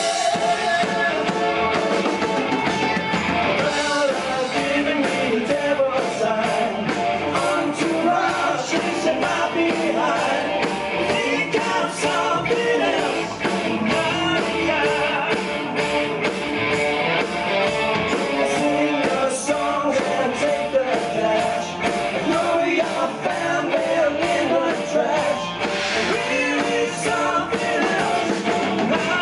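Live rock band playing loud and without a break: electric guitar over a drum kit, with sung vocals.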